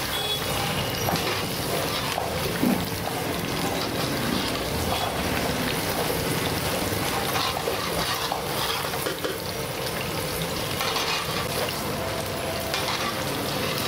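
Cut pieces of mirchi bajji (batter-fried green chilli) deep-frying in a wok of hot oil, a steady bubbling sizzle with fine crackles. The pieces are in their second fry after being cut.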